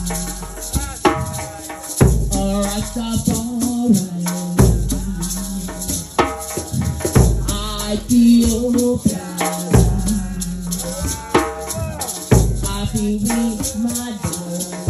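Nyabinghi drumming: a deep bass drum struck about every two and a half seconds under busier hand-drum strokes, with a woman singing a chant into a microphone over it.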